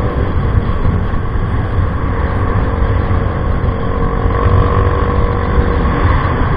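Yamaha Mio i 125 scooter's single-cylinder engine running steadily through an Apido V3 aftermarket exhaust pipe while riding.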